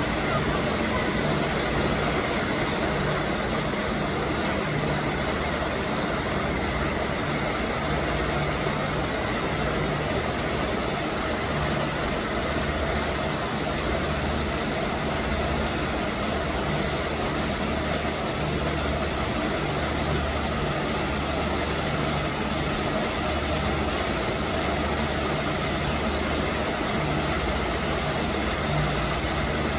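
Steady rushing background noise with an uneven low rumble beneath it. No call from the tiger is heard.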